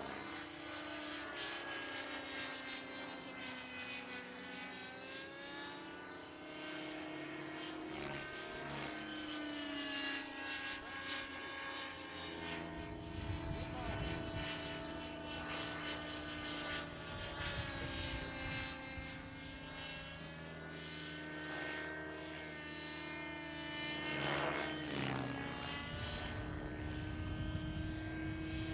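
Knight 50 3D radio-controlled model helicopter flying aerobatic manoeuvres overhead, its engine and rotor whine gliding slowly up and down in pitch as it climbs, turns and descends. A low rumble joins in about halfway through.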